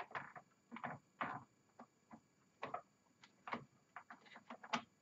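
Light, irregular clicks and taps of a small screwdriver and screws being worked into the key assembly of a Roland D-50 synthesizer, some twenty small ticks in quick, uneven succession.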